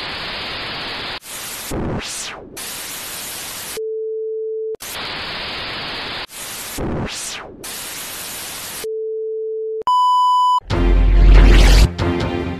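Television-style static hiss in bursts, with a sweeping whoosh through it, alternating with a steady low hum tone; the pattern plays twice. Then a short high beep, and a little after ten seconds a bass hit as intro music starts.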